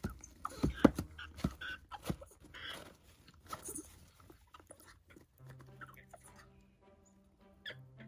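African grey parrot chicks scrambling and flapping in a plastic tub: a run of sharp knocks and scuffs against the plastic in the first couple of seconds, with a few short squeaky calls, then quieter shuffling.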